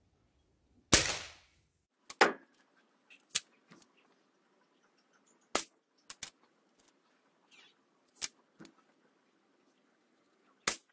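Sniper Afrilec break-barrel spring-piston air rifle firing: a sharp crack about a second in. Then a series of clicks and knocks as the barrel is broken open, cocked, loaded with a pellet and snapped shut, and another sharp crack near the end.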